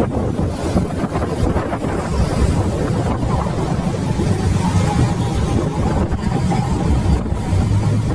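Wind buffeting the microphone: a loud, uneven low rumble with no break.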